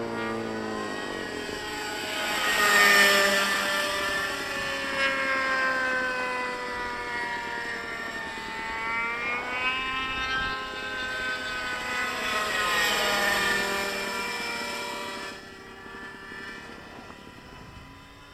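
Nitro RC helicopter (JR Vigor 60 with an OS 61 two-stroke glow engine and tuned pipe) flying fast passes: the engine and rotor whine rises and falls in pitch as it sweeps by, loudest about three seconds in and again around thirteen seconds, then drops away sharply near the end as it moves off.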